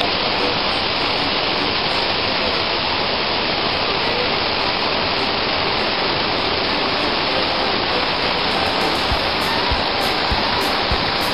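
Waterfall close up, a loud steady rush of water falling onto rocks.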